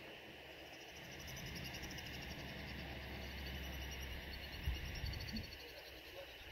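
Insects trilling in a steady, finely pulsing chorus, with a low rumble underneath for a few seconds and a single soft knock about two-thirds of the way through.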